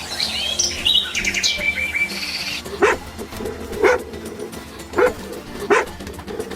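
Birds chirping, then four short, sharp barks about a second apart, over background music.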